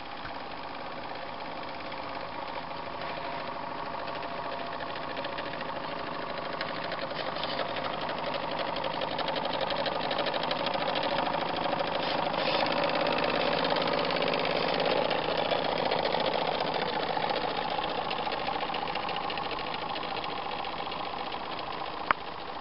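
Motor of a radio-controlled scale model boat running steadily with a fast, even chugging pulse, growing louder as the boat passes close and easing off again. A single sharp click near the end.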